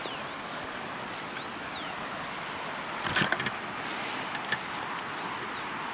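Steady outdoor rushing hiss, with a few short high chirps early on and a brief clatter of clicks about three seconds in.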